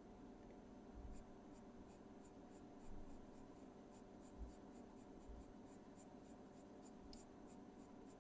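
Faint scratching of a Caran d'Ache Pablo coloured pencil shading on paper in short, even strokes, about three a second, over a low steady hum.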